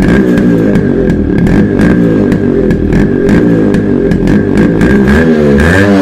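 Yamaha RX 135's two-stroke single-cylinder engine running near idle at the exhaust, its note wavering, with frequent irregular ticks. Near the end the revs rise and fall a couple of times.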